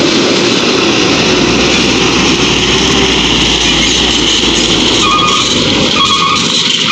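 Loaded dump truck carrying oil palm fruit bunches driving slowly past close by, its engine running with a steady low rumble. Brief high squeaks come a few times from about five seconds in.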